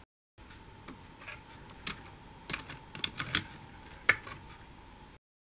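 Faint, irregular light plastic clicks and taps from a toy articulated bus being pushed over Lego train track and a crossing, with the sharpest click about four seconds in.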